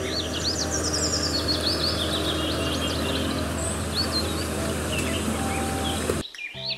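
Hyundai wheeled excavator's diesel engine running steadily as it works, with birds chirping over it; the sound cuts off suddenly near the end.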